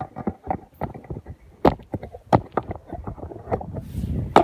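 Wind buffeting the microphone, with a run of irregular knocks and clicks from handling.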